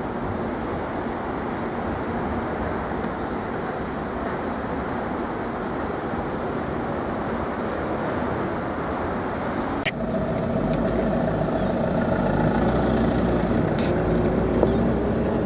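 Steady vehicle running noise; about ten seconds in it changes abruptly to a deeper rumble with steady engine tones.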